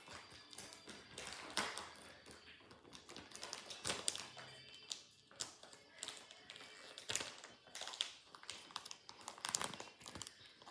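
Irregular soft taps and clicks of handling, over faint music.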